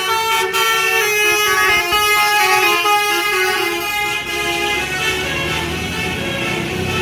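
A bus's 'basuri' telolet air horn playing a tune of stepping notes. A low rumble grows under it near the end.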